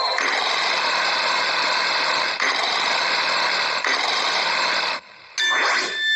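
Cartoon lawnmower sound effect from a letter-tracing game: a steady mechanical buzz as the mower cuts along the grass letter. It stops about five seconds in and is followed by a bright ringing chime near the end as stars appear.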